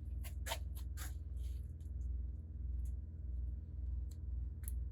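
Small clicks and light scrapes of engine parts and hand tools being handled, a few in the first second and a half and a couple near the end, over a steady low hum with a slow regular throb.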